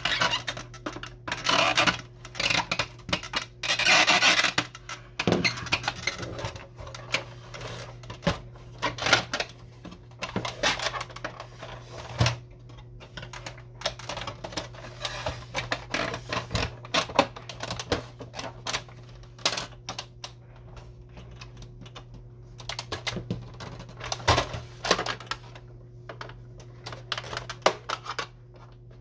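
Plastic casing of an Epson XP-340 inkjet printer being pried and handled with a screwdriver: scattered clicks, snaps and knocks of plastic parts, with a louder scrape about four seconds in. A faint steady low hum runs underneath.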